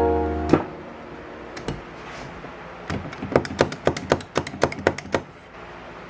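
Exterior door handle of a Chevrolet Avalanche being worked repeatedly, its latch mechanism clicking: a couple of single knocks, then a quick run of about ten clicks, roughly four a second.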